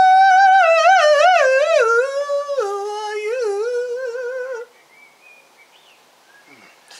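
A man singing a wordless phrase in a high falsetto, mock-operatic, as the harp's voice. The note rises, then wavers down in quick trills and stops about four and a half seconds in.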